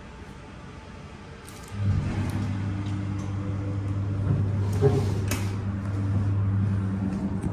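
Hydraulic elevator's pump motor starting up about two seconds in and running with a steady low hum, with a couple of light clicks midway.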